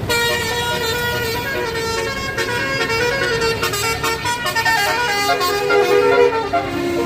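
Bus Basuri telolet horn, a multi-tone air horn, playing a melody: several horn notes sound together and step up and down in pitch.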